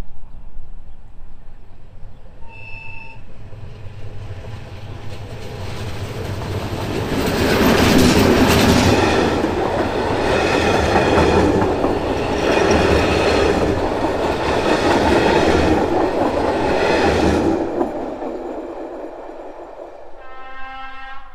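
Czech diesel locomotive sounding a short horn toot, then its train passing loudly with a regular clatter of wheels that peaks and fades. A second horn blast starts near the end.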